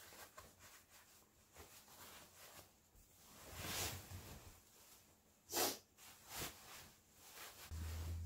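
Cloth duvet cover and comforter rustling as they are handled, with sniffs from a nose running with perennial rhinitis and house-dust allergy; the loudest, a short sharp sniff, comes about five and a half seconds in. Background music comes in near the end.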